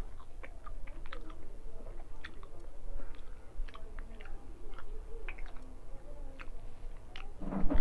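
A person chewing a mouthful of rice and fish curry, with many short mouth clicks. A brief louder sound comes near the end.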